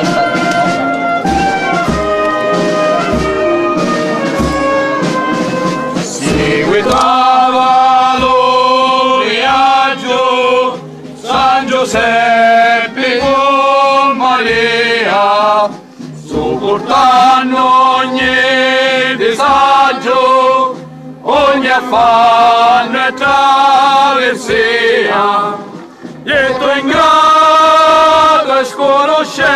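Brass band playing slow held notes with low regular thuds, then about six seconds in men start singing a religious folk chant in long phrases separated by short breaths.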